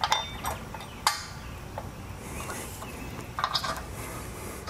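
A few light metallic clicks as steel star washers and bolts are handled and fitted under a trailer jack's mounting flange on the camper tongue. A steady high hiss comes in about halfway through.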